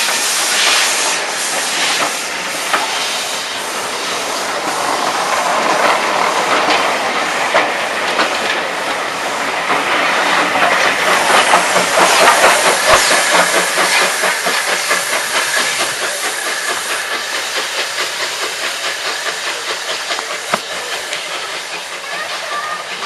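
Steam locomotive Stepney, an LB&SCR A1X Terrier 0-6-0 tank engine, pulling away with its train. Steam hiss and quick exhaust beats build to their loudest about halfway through as it passes, then fade as it draws away.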